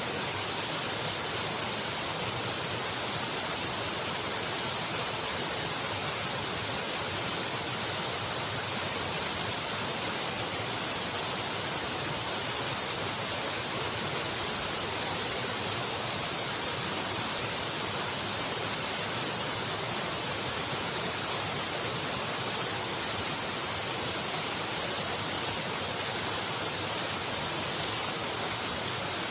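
Waterfall rushing: a strong, steady noise of falling water that does not change.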